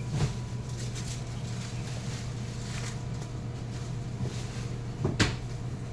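Steady low machine hum, with a light knock just after the start and a sharp, loud clack about five seconds in, like a lid or container knocked shut behind a shop counter.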